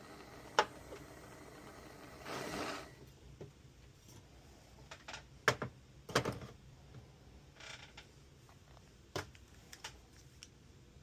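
Scattered sharp clicks and knocks of a small toy being handled and worked on, with a short hiss a couple of seconds in.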